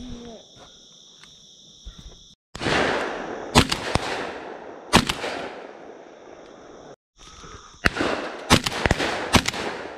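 12-gauge shotgun shots fired at passing doves: two loud shots about a second and a half apart, then a quick run of four or five shots close together near the end.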